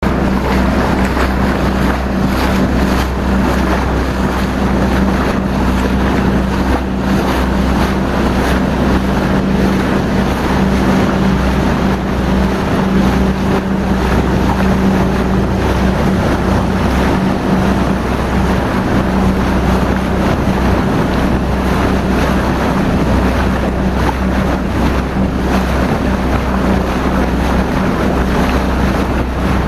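A motorboat's engine drones steadily, with a constant low hum, under heavy wind noise on the microphone and the rush of water along the hull.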